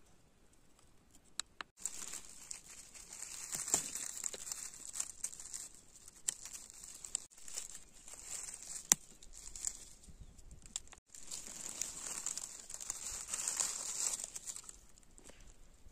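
Dry oak leaf litter rustling and crackling as a hand pushes through it to pick a morel mushroom, with a few sharp clicks among the rustle. It starts about two seconds in and breaks off briefly about two-thirds of the way through.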